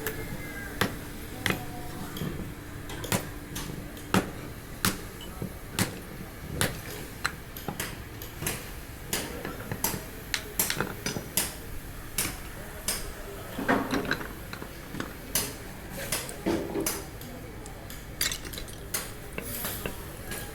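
Irregular sharp metal clinks and knocks, about one or two a second, as metal scrap parts are handled and struck.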